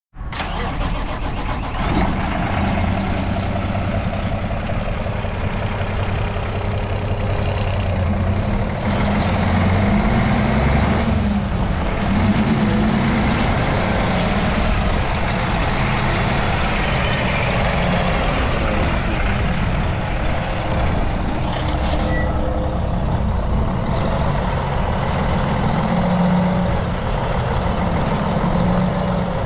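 Diesel engine of a 2007 Kenworth T800 quad-axle dump truck idling steadily.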